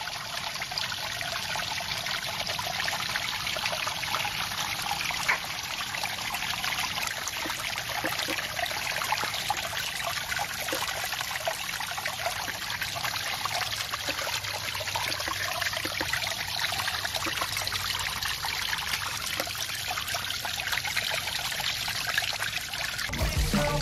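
Water pouring down a miniature concrete dam through the paddles of a small water-wheel turbine and splashing into the pool below, a steady rushing splash.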